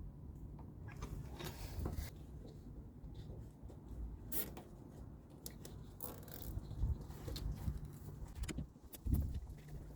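Scattered clicks and scrapes of hand work on a lorry battery terminal as a wire is connected, over a steady low rumble.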